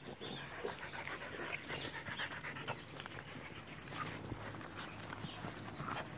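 Young dogs panting close to the microphone, with scuffling and many small clicks from paws and handling as they crowd in.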